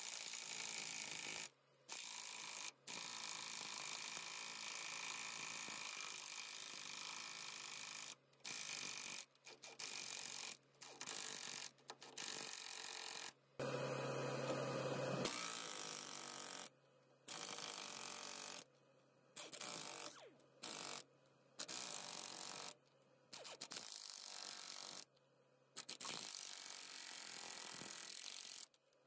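Earthquake air impact wrench hammering nuts tight on cutting-edge bolts, in repeated bursts of rattling from under a second to several seconds long, with short pauses between. One burst just past the middle is louder and deeper.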